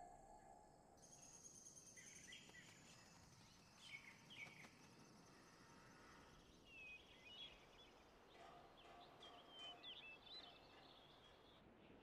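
Near silence: a low ambient hiss with faint, scattered bird chirps, a few around four seconds in and a small cluster near the end. A faint held tone dies away about a second in.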